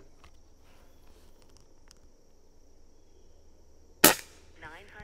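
A single shot from a custom Umarex Gauntlet PCP air rifle about four seconds in: one sharp, loud crack of released air with a short tail.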